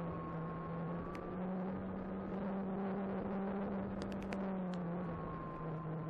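Electric motor and propeller of an Apprentice 15e RC trainer airplane running steadily in flight: an even whir whose pitch shifts slightly with the throttle, over wind rush. A few faint short ticks come about two-thirds of the way through.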